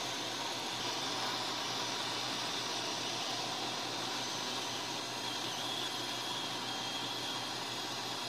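Atten 852D hot air rework station blowing a steady hiss of hot air from its nozzle onto a phone's processor, heating it to melt the solder beneath so the chip can be lifted off the board.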